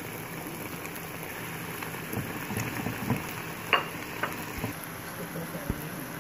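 Chicken samosas deep-frying in very hot oil, a steady sizzle and crackle. A few clicks and knocks sound in the middle, the loudest a little past halfway, and two low thumps come near the end.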